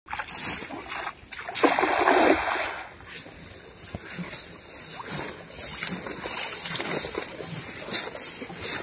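A cast net thrown into a river lands with a splash about a second and a half in, lasting about a second, followed by fainter scattered water noise.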